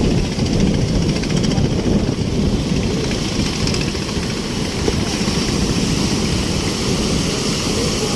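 Fishing boat's engine running steadily under a rushing noise.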